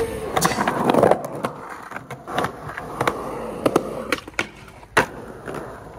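Skateboard wheels rolling over smooth concrete, loudest in the first second, with several sharp clacks of the board. The sharpest clack comes about five seconds in.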